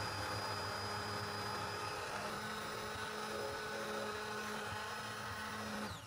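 Hand-held immersion blender running steadily with its blade submerged, puréeing cooked pumpkin and carrot soup in a stainless steel pot; a steady motor hum with a high whine. Near the end it is switched off and the motor winds down, the whine falling in pitch.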